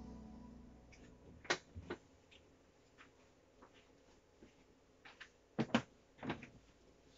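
The last chord on the keyboard dies away at the very start, then a few scattered knocks and clunks of someone moving about and handling equipment, the loudest about a second and a half in and a cluster near the end.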